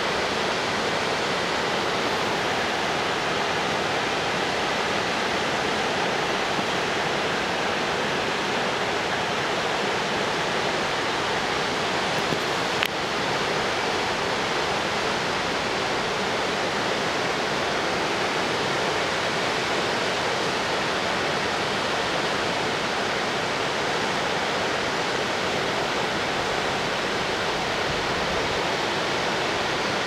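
Whitewater cascade rushing down a rocky gorge: a steady, unbroken rush of falling water. A single brief click sounds about halfway through.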